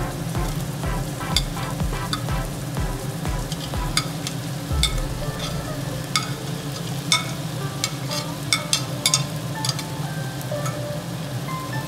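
Onions sizzling in hot oil in a cooking pot as sliced tomatoes and green chillies are added, with repeated sharp clinks and scrapes of a steel spoon against the plate and pot. The clinks come thickest about halfway and again near the end. Soft background music plays underneath.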